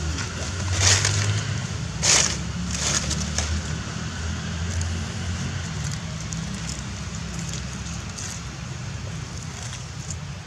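Dry leaves crackling as a macaque handles them: four short crunches in the first few seconds, the second the loudest. A steady low rumble runs under them.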